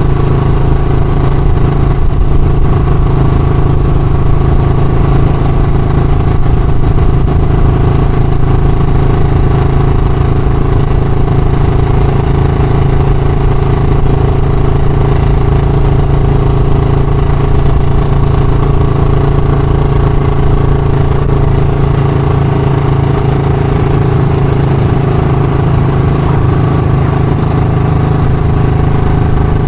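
Royal Enfield Classic's single-cylinder four-stroke engine running steadily at a constant speed, loud and unchanging throughout.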